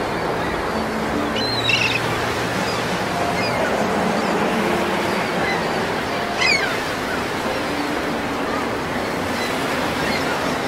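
Steady sound of wind and choppy water, with two short, falling bird calls, one a couple of seconds in and one about six and a half seconds in.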